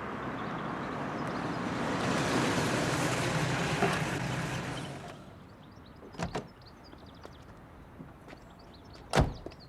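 A vehicle passing: a rushing noise with a low rumble that swells and fades away over about five seconds. Then two sharp knocks, the louder one near the end.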